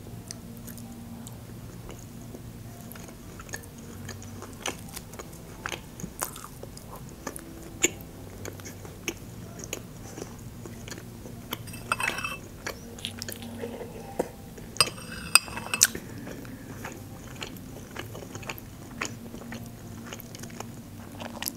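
Close-miked chewing of a tender fried meat chop dipped in soy sauce, with many small wet mouth clicks. A spoon clinks against the glass bowl a couple of times in the second half.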